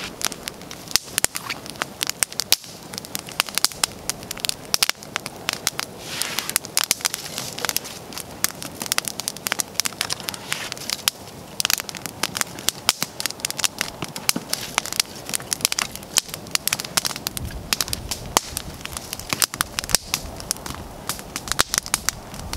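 Small split-wood campfire crackling steadily, with many sharp snaps and pops throughout.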